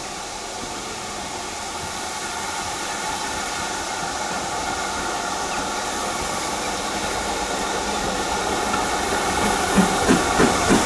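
Steam locomotive working nearby, a steady hiss and rumble that grows slowly louder. A regular pulsing, about three beats a second, starts near the end.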